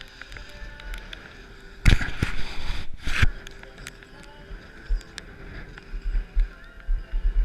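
Edges carving and scraping over hard snow in two loud rushes, about two and three seconds in. Wind rumbles on the microphone near the end.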